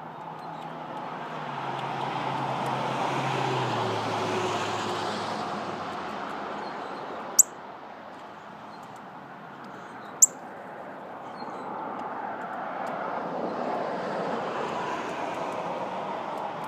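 Traffic passing twice, each time swelling and fading; the first comes with a low hum that falls in pitch as it goes by. Between the two, there are two short, sharp high clicks about three seconds apart, over faint small-bird chirping.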